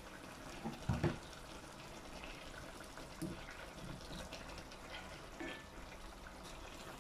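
Chicken, potatoes and a little water in a stainless steel pot on a high gas flame, the liquid bubbling faintly as it comes to the boil, with a single soft knock about a second in.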